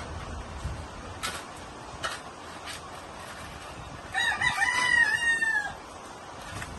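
A rooster crowing once, about four seconds in: a single pitched call lasting under two seconds, the loudest sound here. A few short clicks come before it.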